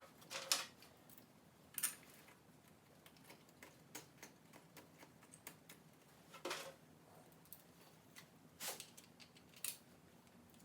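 Faint, scattered clicks and clinks of bolts, washers and hand tools being handled while a water pump is bolted onto an engine block, with about five louder knocks spread through and small ticks between.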